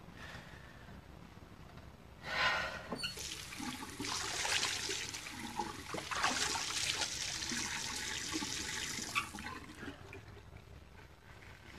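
Tap water running into a bathroom sink. It gushes on a little after two seconds in, runs steadily, and stops about nine seconds in.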